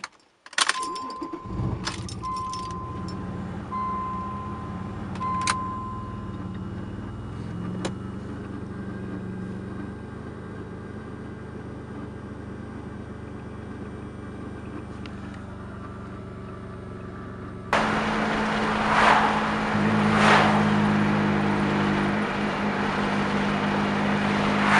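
Cold start of a turbocharged Mazda KL V6 in a 1994 Mazda MX-6, not run for a week: a few clicks, a brief crank, then the engine catches and settles into a steady idle while a chime beeps four times. About 18 s in, the sound switches abruptly to the louder running of the car being driven on the road, with a couple of swells.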